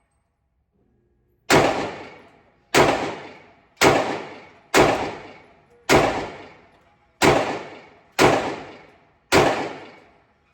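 Glock 43X 9mm pistol firing eight shots at a steady pace, about one a second, each shot with a short echoing tail.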